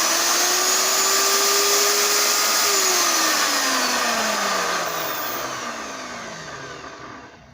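Table-mounted Kobalt router motor running at full speed with no load on its first power-up, a steady high whine. About three seconds in it is switched off and winds down, its pitch falling steadily until it has nearly stopped near the end.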